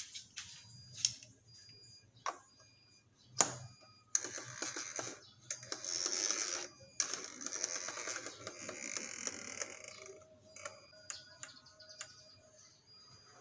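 Clicks and knocks of hand tools and metal parts being handled, with two sharper knocks in the first few seconds. From about four seconds in there are several seconds of rustling and scraping.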